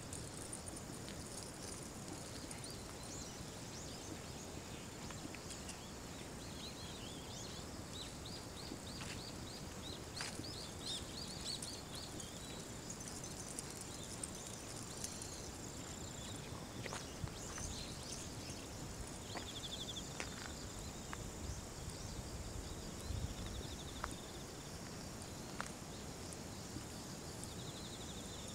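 Insects chirping and trilling continuously in a high register over a steady low outdoor noise, with scattered light clicks.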